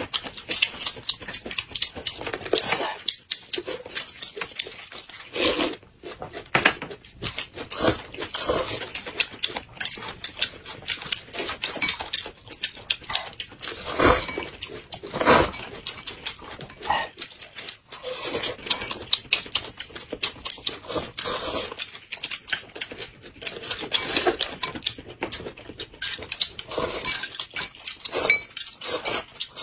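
Eating sounds: loud slurping of noodles and soup from a bowl, chewing and mouth noises in irregular bursts, with occasional clinks of chopsticks and spoon against a bowl and glass.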